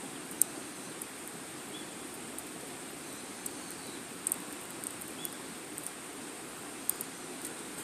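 Wood fire burning, crackling with irregular sharp pops over a steady low rush; the loudest pop comes about half a second in.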